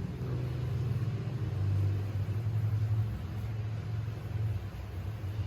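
Motorbike traffic passing on the road: a steady low engine rumble that swells about two seconds in.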